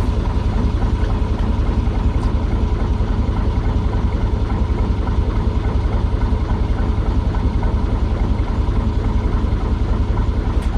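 Narrowboat diesel engine idling steadily, a loud, even low pulsing that holds without change.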